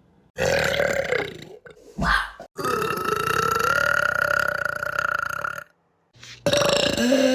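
A person belching loudly several times: a belch of about a second, a brief one, then one long, steady belch lasting about three seconds. After a short silence another belch starts near the end.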